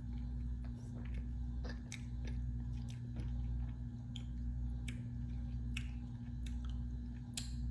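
Someone eating ice cream close to the microphone: wet mouth clicks and chewing sounds, scattered and irregular. A steady low electrical hum, swelling and fading about once a second, runs underneath and is the loudest thing.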